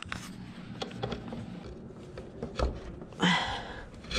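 Plastic-sheathed electrical cable being handled and pushed into a blue plastic electrical box on a wooden stud, with small clicks and rustles. A short louder burst comes about three seconds in.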